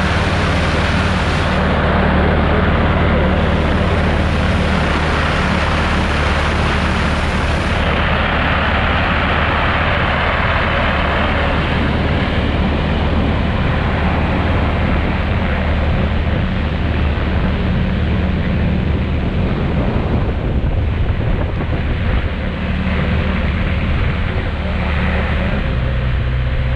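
Gyrocopter's engine and pusher propeller running steadily as it taxis across grass, with wind noise over the microphone; the engine note shifts slightly near the end.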